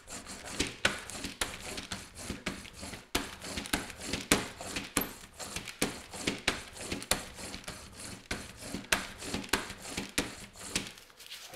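Small brayer roller rolled back and forth over a clear plastic sheet pressed onto transfer paper, with dense, irregular crackling and clicking from the roller and the flexing sheet. It presses the paper down into wet acrylic gel medium to push out air pockets.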